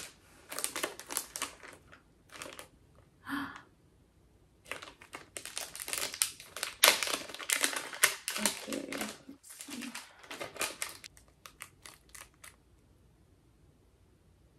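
Plastic packaging crinkling and rustling as it is handled, in short bursts at first, then busier, stopping a couple of seconds before the end.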